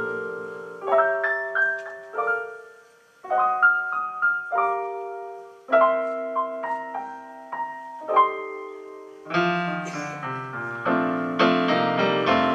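Piano playing an instrumental interlude of a slow song: short phrases of single notes over held chords, each note dying away. About nine seconds in, the playing grows fuller and louder, with deeper bass notes.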